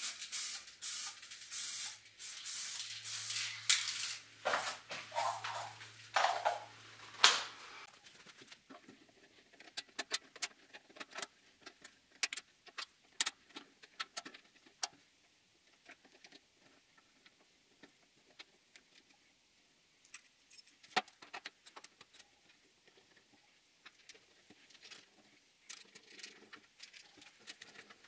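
MIG welding crackling over a steady electrical hum for the first seven or eight seconds, then stopping. After that come scattered small metallic clicks and clinks as a chrome breather cap, its gasket and small screws are fitted onto a steel tank.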